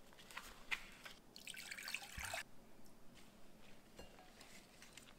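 Faint drips and sloshing as a potted houseplant is pressed down into a glass bowl of water for bottom watering, with a few light clicks and a soft rustling hiss about a second and a half in.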